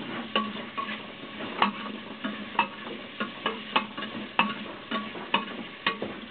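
Pork frying in a pan with a steady sizzle while it is stirred, the utensil clicking against the pan about twice a second at an uneven pace. The pork is still being sautéed until it browns.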